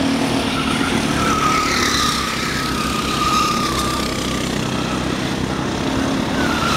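Small go-kart engines running at speed around a track. The whine of one nearby kart falls slightly in pitch over a few seconds, and another kart's whine comes up near the end.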